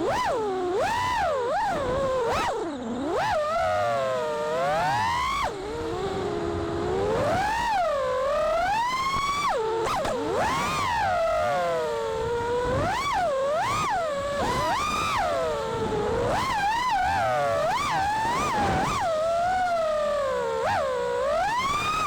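A 6S 5-inch FPV freestyle quadcopter's brushless motors are whining with propellers spinning. The pitch swoops up and down sharply and continually as the throttle is punched and chopped through the manoeuvres.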